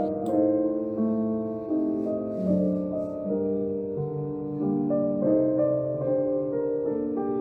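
Calm instrumental background music: a keyboard instrument playing held notes that change about once a second.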